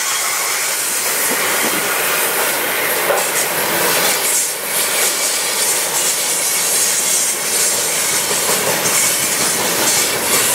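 A CN freight train's cars rolling past, a steady rush of wheel-on-rail noise.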